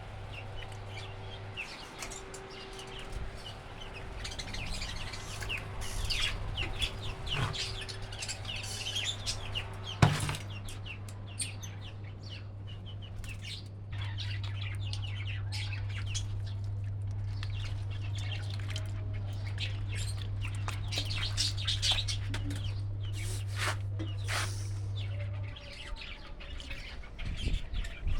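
Small pet parrots chirping and chattering in many short, high calls. A steady low hum runs underneath, getting louder about halfway and stopping near the end, and a single sharp knock comes about ten seconds in.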